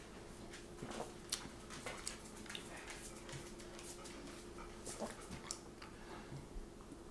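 A person sipping frothed coffee from a ceramic mug: faint sips and short lip and mouth clicks at irregular moments, over a steady faint hum.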